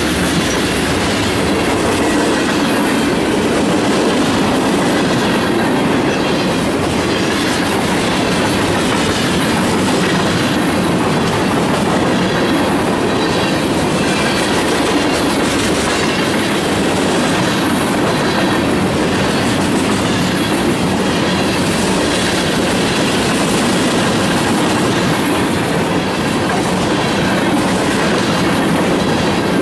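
A freight train's cars (covered hoppers, tank car, boxcars) rolling past at close range: a steady, loud rolling noise of steel wheels on the rails, with clickety-clack over the rail joints.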